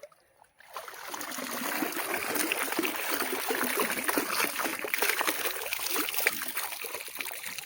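Water splashing and trickling as a submerged fish-trap pot is lifted out and drains, starting about a second in.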